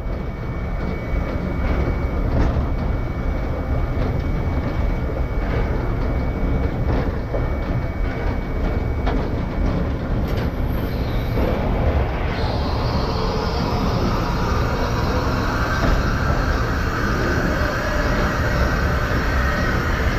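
Heritage train running along a branch line, with a steady low rumble and occasional clicks from the wheels over the track. About twelve seconds in, a steady hiss joins the rumble and carries on to the end.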